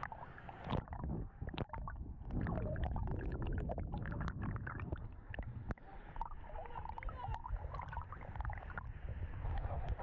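Lazy-river water sloshing and gurgling right at the microphone as a swimmer moves through it, with a heavy low rumble and many small splashes and pops; the sound turns muffled whenever the microphone dips under the surface.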